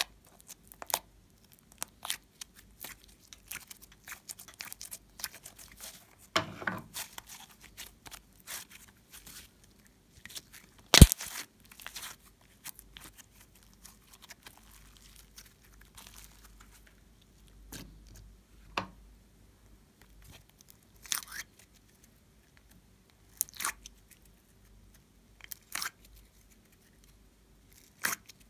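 Slime being squeezed by hand and pressed out of plastic molds: scattered sticky crackling and tearing sounds with light plastic clicks, and one sharp loud click about eleven seconds in.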